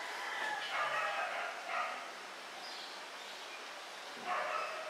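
A dog whimpering and yipping in short high-pitched whines, a cluster in the first two seconds and another about four seconds in.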